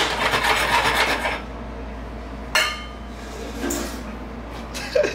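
A utensil scraping across a frying pan for about a second and a half, then a single sharp metallic clink with a short ring.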